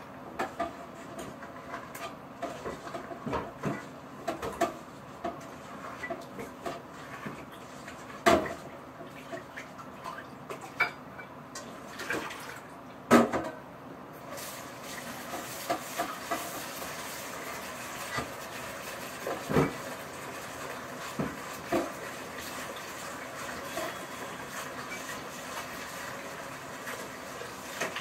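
Kitchen clatter: scattered knocks and clinks of things being handled and set down on the counter, then from about halfway a steady rush like running water joins in.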